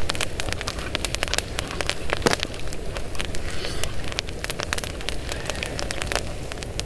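Wood campfire crackling, with irregular sharp pops over a steady hiss.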